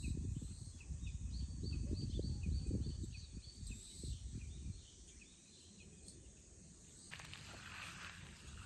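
A small bird calling with short high notes, about three a second, under a low wind rumble on the microphone that dies away about halfway through. Near the end, a rustling with small clicks sets in.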